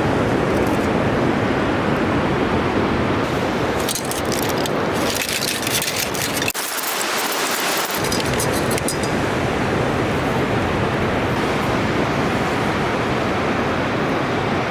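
Steady rushing noise of ocean surf and wind, with a few faint clicks in the middle.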